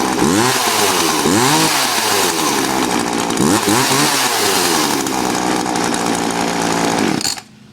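Homelite 45cc two-stroke chainsaw engine running and being revved up and down several times, then shut off near the end. It runs well on fresh gas.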